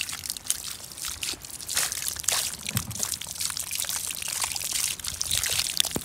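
Rainwater pouring out of the open end of a plastic downpipe and splashing onto a stone slab, a continuous spatter of drops.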